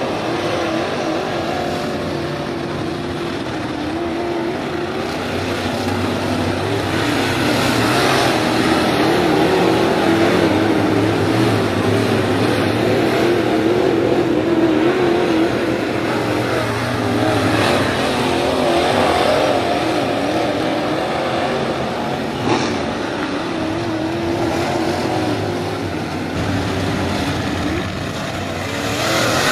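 A field of IMCA Modified dirt-track race cars running around the oval, their V8 engines blending into a wavering drone that swells and fades as the pack passes.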